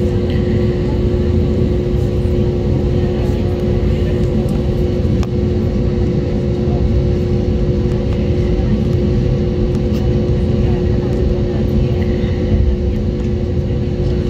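Airbus A320neo's Pratt & Whitney PW1100G geared turbofan engines heard inside the cabin over the wing, running steadily at taxi power: a deep rumble with a steady two-note hum on top.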